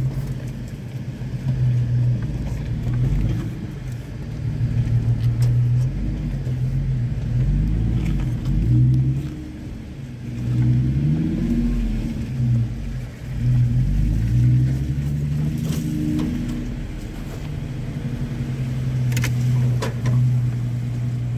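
Off-road SUV engine running at low trail speed, heard from inside the cabin, with a steady low drone and revs rising and falling as it crawls over rough ground, along with a low rumble.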